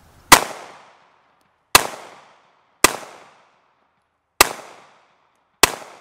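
Five shots from a Glock 43 subcompact 9mm pistol, fired one at a time about one to one and a half seconds apart. Each sharp crack trails off in a brief echo.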